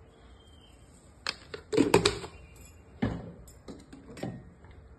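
Several sharp clicks and knocks of kitchen utensils and containers being handled over a steel mixing bowl, the loudest cluster about two seconds in, with single knocks about three and four seconds in.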